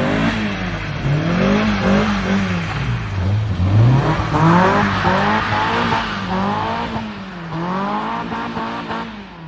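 BMW E46's engine revving up and down over and over, about once a second, as the car is drifted on a wet road, under a hiss of tyre and road noise. Near the end the revs fall away to a low idle as the driver clutches in.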